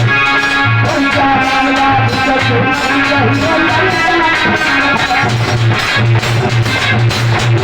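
Instrumental music with no voice: a wavering melodic lead over a bass pulsing in a steady beat, the accompaniment of a Hindi folk farewell song (bidai geet).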